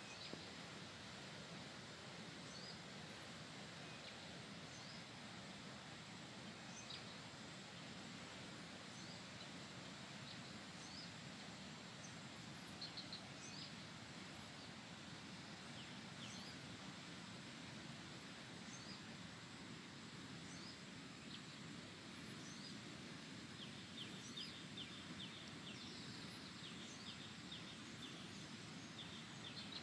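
Quiet outdoor ambience: a steady low hiss with small birds chirping faintly here and there, and a quick run of rapid chirps near the end.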